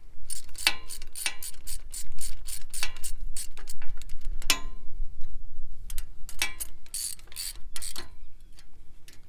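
Hand socket ratchet clicking in rapid runs as nuts are run down onto new sickle sections on a hay mower's knife bar, with a pause of a second or so about halfway through. Some clicks ring like steel.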